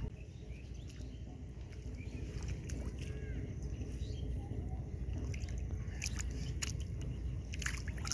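A boy's hands sloshing and splashing in shallow, muddy rice-paddy water, with a run of sharper splashes in the last few seconds, over a steady low rumble.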